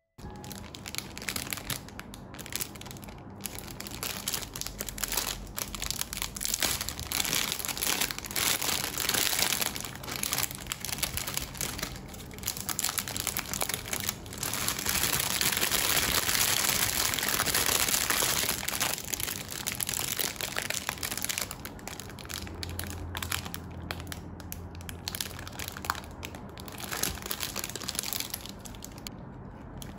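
A thin clear plastic pastry bag crinkling as it is handled and opened, a dense crackling that is loudest around the middle and thins out to scattered crinkles near the end.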